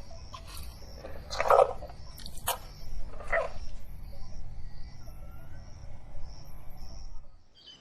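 Kumki elephant (a trained Asian elephant) giving a few short calls in the first half, over a faint high chirping that repeats a couple of times a second.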